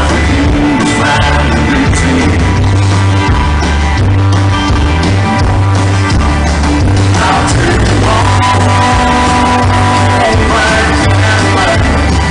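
Live country band playing with a steady beat and a singer, loud, with some shouting.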